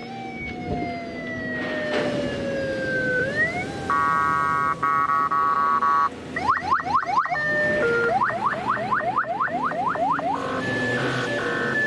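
Electronic vehicle siren cycling through its tones: a slow falling and rising wail, a steady blaring tone about four seconds in, then fast rising yelps at about four a second, and a two-tone hi-lo toward the end.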